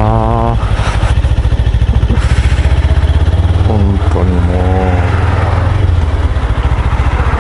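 Suzuki GSR250 parallel-twin motorcycle engine running steadily at cruising speed, heard from the rider's position with wind noise on the microphone.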